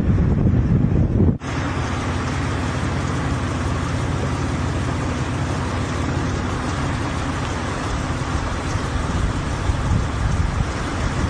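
Strong wind near a tornado: first a gusty rumble buffeting the microphone, then, after a sudden break about a second and a half in, a steady even rushing noise.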